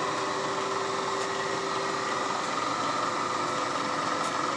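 Steady mechanical hum of shop machinery, with several steady tones over an even noise and a few faint light ticks.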